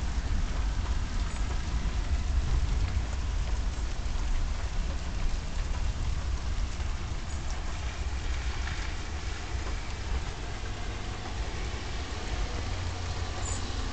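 Steady rain falling, a constant hiss with a low rumble underneath, a little louder in the first half.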